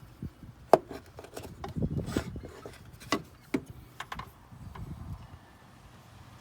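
Irregular clicks, knocks and rubbing of hand tools and engine parts being handled, about half a dozen sharp knocks in all, the loudest less than a second in.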